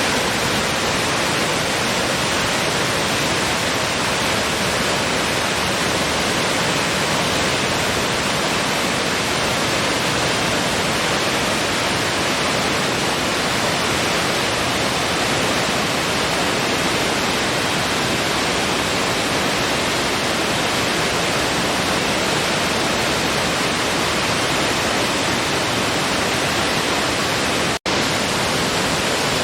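Waterfall with a steady, even rush of falling water, broken once near the end by a split-second gap.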